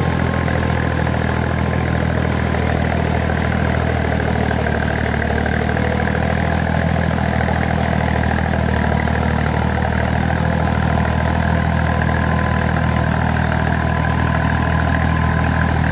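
Iseki 3510 tractor's diesel engine running steadily as it pulls a levelling board on cage wheels through a flooded paddy field.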